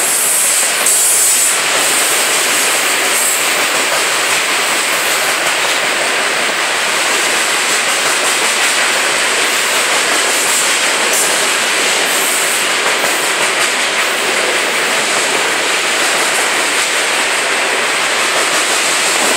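Freight train of open-top cars passing close by: a loud, steady rush and clatter of steel wheels on the rails that holds unchanged as car after car goes past.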